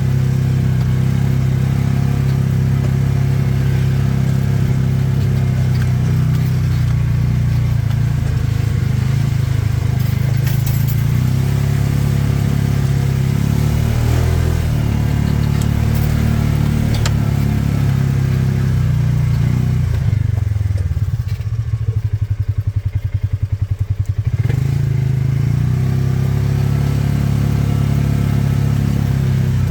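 A vehicle engine runs steadily under way. About 21 seconds in it eases off to a slow, low chugging for about three seconds, then picks up again.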